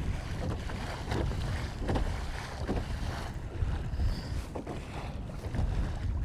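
Wind buffeting the microphone with a low rumble, while water splashes against a sea kayak heading into the wind, in short bursts about every half second to a second.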